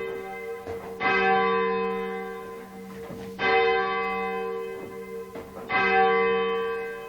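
A single church tower bell, one of a ring of eight, rung full circle on its rope, striking three times a little over two seconds apart. Each stroke rings on and fades away before the next.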